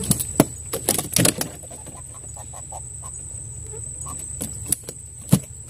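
Sharp knocks and clatters in a small boat as a freshly landed catfish and fishing tackle are handled, a quick run in the first second and a half and a few more near the end. A steady high-pitched insect drone runs underneath.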